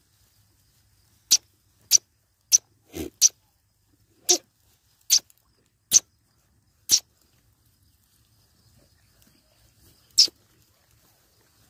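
A goat snorting: about ten short, sharp blows of breath, irregularly spaced, most of them in the first seven seconds and one more near the end, two with a short throaty grunt in them.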